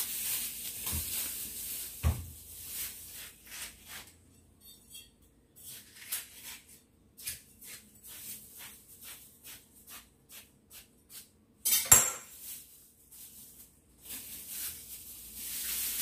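A knife cutting watermelon on a wooden chopping board: a run of light taps and clicks, with one sharp knock about twelve seconds in. Near the end comes a plastic bag rustling as a slice is put into it.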